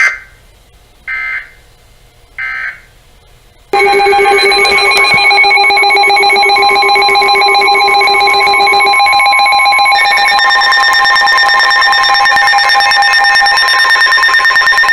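NOAA Weather Radio EAS signalling: three short bursts of digital data tones about a second apart, the SAME end-of-message code, then a loud, rapidly pulsing multi-tone alert alarm that runs for about twelve seconds and shifts to a different set of pitches partway through.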